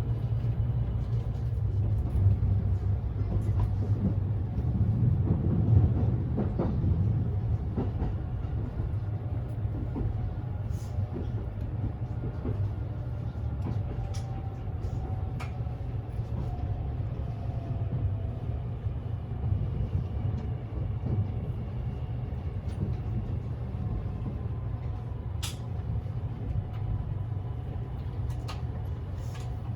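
Cabin noise of a Kintetsu 80000 series Hinotori limited express train in motion: a steady low rumble, a little louder a few seconds in, with scattered light clicks and a faint falling whine midway.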